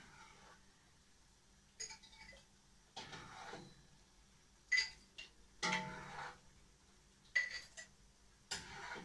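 Quiet background music: a handful of short, separate notes or chords with gaps between them.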